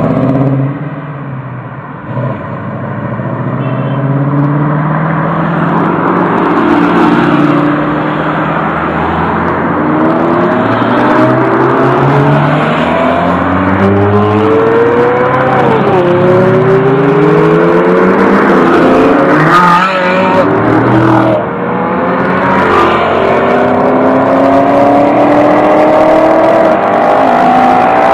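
Sports car engines passing in a convoy, one after another, each revving and accelerating so the engine pitch rises again and again. A few sharp cracks come near the middle.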